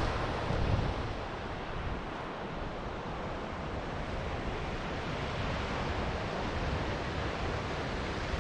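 Ocean surf washing steadily on a beach, with wind buffeting the microphone in a low rumble for about the first second.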